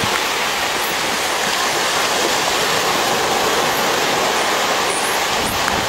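Surf washing onto a beach: a steady, even rushing hiss of water with no breaks.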